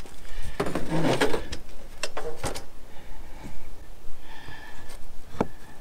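Clatter and knocks of an old Winegard batwing crank-up antenna's base and crank assembly being lifted out of the roof and handled. There is a burst of rattling about a second in and sharp knocks around two seconds in and near the end.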